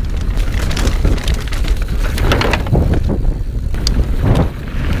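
Polygon Siskiu N9 enduro mountain bike descending a loose dirt trail at speed, heard from a handlebar-mounted camera: heavy wind buffeting on the microphone with tyre roar and many quick rattles and knocks from the bike over the rough ground.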